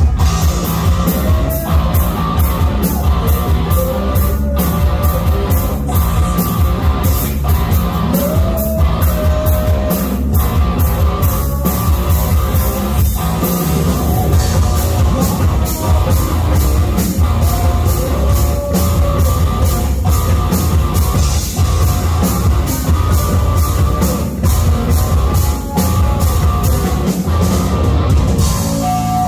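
Heavy metal band playing live and loud: a steady drum beat and amplified electric guitar, with a singer's voice over it.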